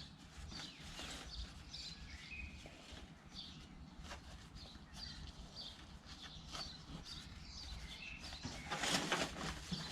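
Canvas tool roll full of hand tools being rolled up and handled: rustling fabric, a few light knocks of the tools inside, and a louder rustle about nine seconds in. Birds chirp in the background.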